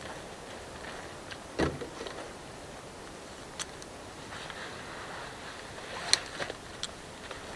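A plastic water jug set down on dry ground with a dull thump, then a backpack being taken off: rustling straps and a few sharp clicks, the loudest near the end.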